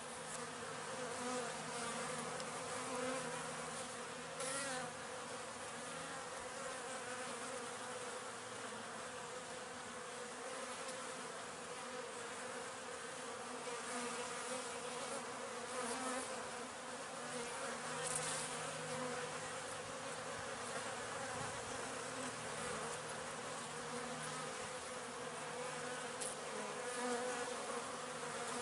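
Honey bee colony buzzing: a steady, slightly wavering hum of many bees on the hive frames.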